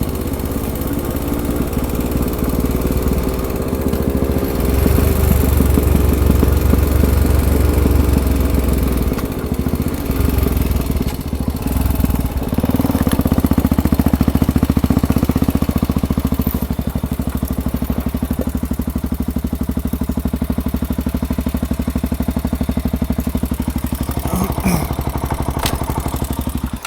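ATV engine running as it is ridden, its pitch rising and falling with the throttle, then cutting off suddenly at the end.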